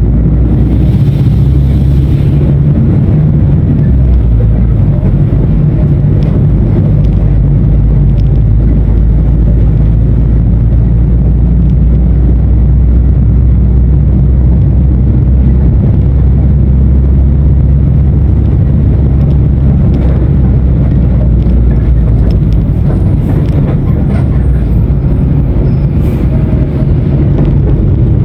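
Mercedes-Benz OF-1519 BlueTec 5 bus's diesel engine running steadily with a deep, even drone. A brief hiss sounds about a second in.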